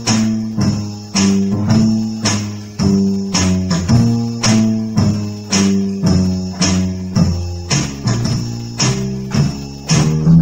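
Electronic keyboard music: a bouncy tune with bass notes and chords over a steady percussion beat, a sharp hit about twice a second.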